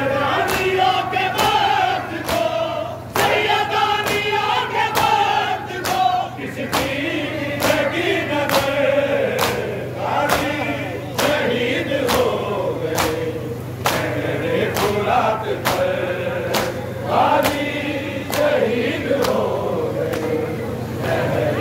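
A crowd of men chanting a Shia nauha (Muharram mourning lament) together, with sharp matam strikes in unison, hands beating chests at a steady beat of about one and a half a second.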